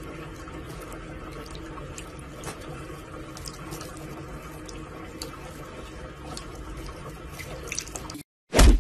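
Water running steadily from a bathroom tap into a sink, with faint scattered clicks of a cat lapping at the stream. The running water cuts off abruptly a little after eight seconds, and a loud thud comes right at the end.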